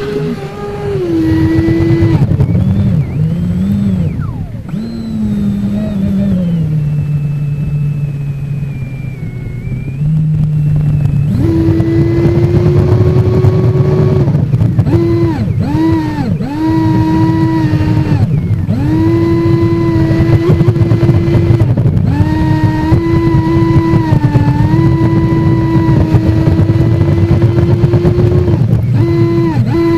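UL-1 RC hydroplane's motor running, heard from a keyfob camera taped to its deck: a steady whine over rushing water. It runs lower and uneven for the first ten seconds, then at a higher, steady pitch from about eleven seconds in, dipping briefly several times as the throttle is eased.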